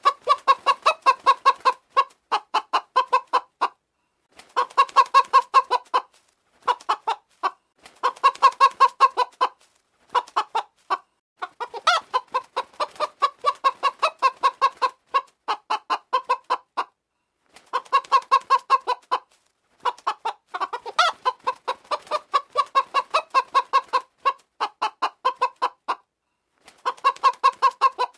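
Domestic chicken clucking: quick runs of short clucks, each run lasting a second or two, broken by brief pauses.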